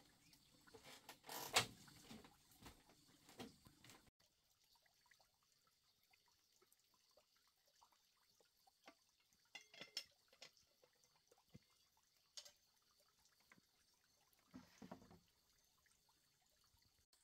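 Footsteps on a bamboo floor, then, after a cut, faint scattered clinks of cookware and a little water splashing in a basin.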